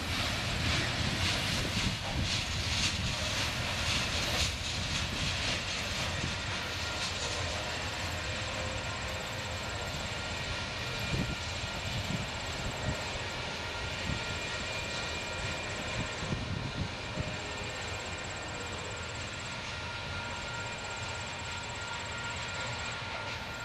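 Freight cars of a Union Pacific mixed freight, ending with a covered hopper, rolling past on the rails with wheel clatter over the first few seconds. The steady rumble of the train then fades slowly as it moves away, with a thin steady whine underneath.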